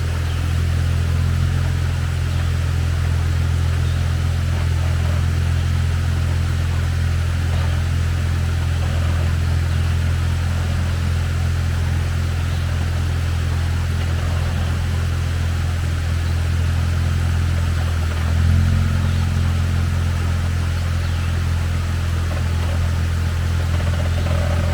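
Off-road 4x4 engine running steadily at low, idle-like revs while crawling over rocks, with one brief rev about three-quarters of the way through.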